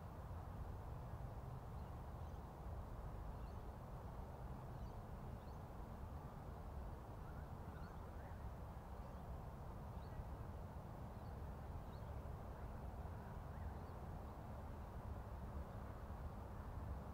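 Steady, dull rush of air over the small onboard camera's microphone of an RC model plane in flight, mostly low in pitch. Faint high chirps come through now and then.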